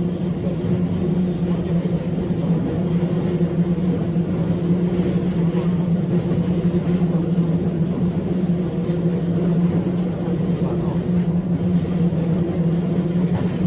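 Seoul Subway Line 2 electric train running at steady speed on elevated track, heard from inside the car: a continuous rumble of wheels and running gear with a steady low hum.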